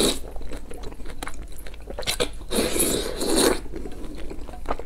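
Noodles being slurped close to the microphone: one long slurp of about a second from about two and a half seconds in, with the tail of another right at the start. Wet chewing clicks fill the gaps between them.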